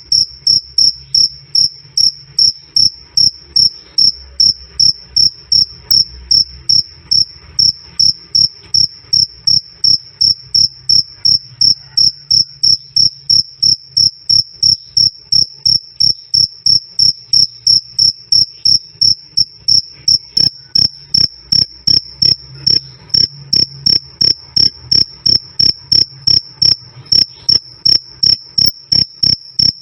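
A cricket chirping, a high clear "krik krik" repeated in evenly spaced chirps, about two or three a second, loud and steady throughout.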